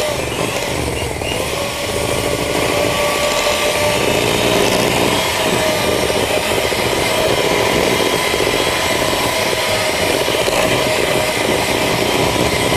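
Electric hand mixer running steadily, its beaters creaming butter and sugar in a glass bowl; the motor's pitch dips briefly near the start, then holds.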